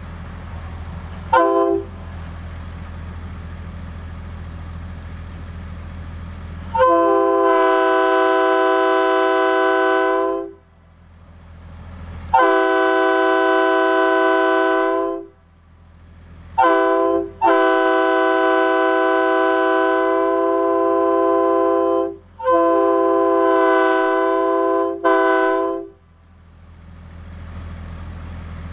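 Nathan Airchime RS-3K locomotive air horn blowing its chime chord. There is one short toot, then a string of blasts: two long, one short, then two long and a final short.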